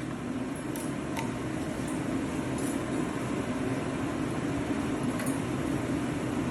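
Steady machine hum, growing slightly louder, with a few faint light clicks.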